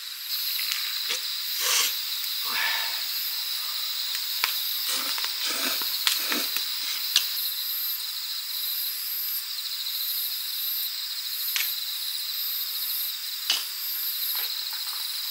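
Crickets chirping in a steady, pulsing high trill, with occasional sharp clicks and crackles over it.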